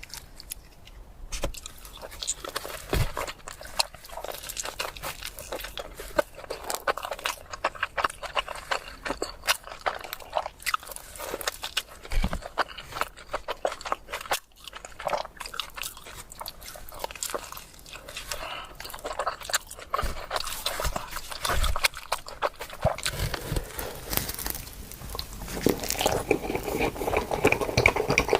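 Close-miked pizza eating: bites into the crust and wet chewing, with many small irregular mouth clicks and smacks. It grows louder and fuller near the end.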